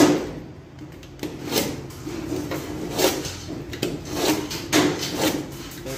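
Utility knife blade scraping repeatedly along a cut line in fiber cement board, a short stroke about every half second in uneven runs, cutting the board by hand without a grinder. A sharp knock comes right at the start.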